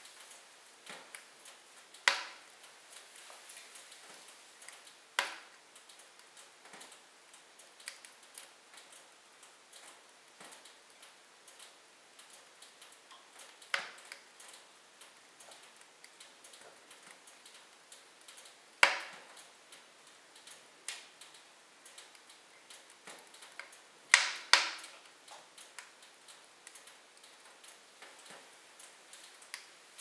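Wood logs burning in a fireplace, crackling with scattered small ticks and a handful of sharp louder pops several seconds apart, two of them in quick succession.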